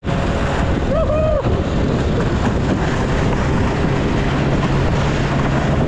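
Small engine of a tracked motorised snow tug running steadily under load as it pulls a sled through snow, heard from the sled close behind with wind on the microphone. A brief rising-and-falling tone sounds about a second in.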